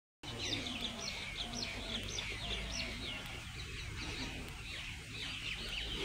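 A chorus of small birds calling and chirping over one another, many short, quick sweeping notes, with a steady low rumble beneath.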